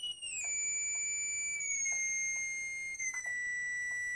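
A small speaker driven by an adjustable-frequency signal-generator module, sounding a steady, high-pitched beep. The pitch steps down several times as the frequency setting is lowered, with faint clicks from the adjustment.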